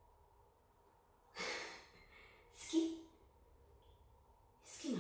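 Three soft, breathy sighs or exhalations, the last two with a short low voiced sound, falling in pitch on the last.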